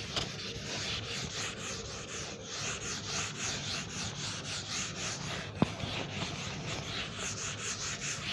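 Writing: a run of short scratchy rubbing strokes of a writing tool on a surface, with a single sharp click about five and a half seconds in.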